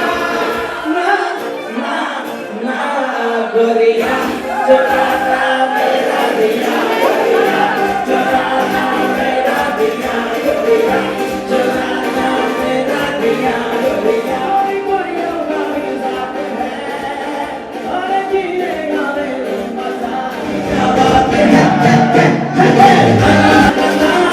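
Music with several voices singing together, growing louder near the end.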